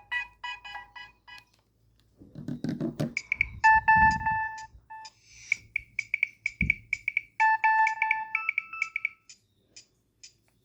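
Nokia 3120 mobile phone playing its ringtones through its small loudspeaker. One electronic melody ends about a second in. After a short pause another starts, a busy tune of fast repeated beeping notes that stops near the end.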